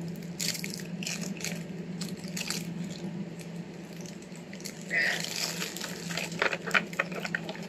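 Plastic packaging crinkling and light clicks of a small plastic device and tray being handled while unboxing, over a steady low hum.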